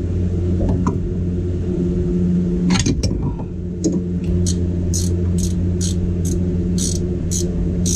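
A run of sharp metallic clicks, about two a second, in the second half, typical of a ratchet wrench turning the lower ball joint's castle nut, with a single clank just before. A steady low machine hum runs underneath.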